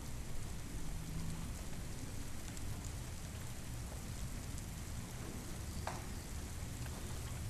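Steady rain, an even hiss with a low rumble beneath and scattered faint ticks. A single short knock comes near the end.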